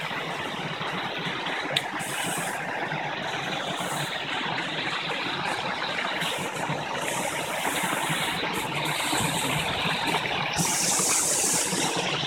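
Steady rush of water from a waterfall and a rocky stream, a little louder near the end, with one sharp click about two seconds in.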